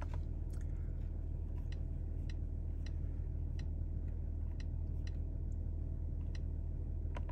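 Mercedes-AMG GT53's 3.0-litre turbocharged inline-six idling, heard as a steady low hum inside the cabin. A light tick repeats evenly about every 0.6 seconds over it.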